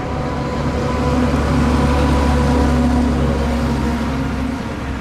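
Jet engines of a twin-engine Airbus A330 airliner climbing away after takeoff: a steady, heavy roar with a few steady tones in it, swelling to its loudest about halfway through, then easing.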